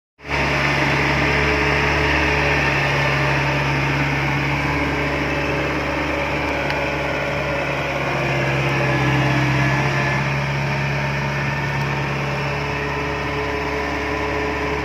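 Kubota DC-70 rice combine harvester's diesel engine and machinery running steadily at a constant speed, a loud even drone.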